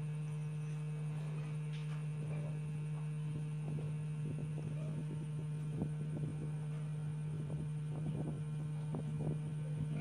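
Steady low electrical hum with a fainter, higher steady tone above it. Faint, scattered soft knocks come in the second half.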